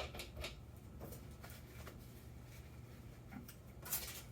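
Light handling noises as a knife and leather strop are set up: a few small knocks and clicks, then a brief rub about four seconds in, over a low steady hum.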